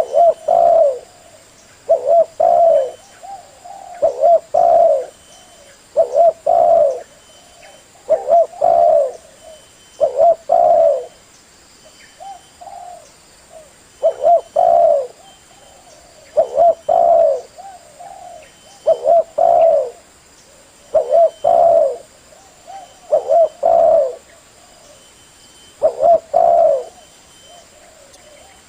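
Male spotted dove (tekukur) cooing. Its short phrases of a few low coos repeat about every two seconds.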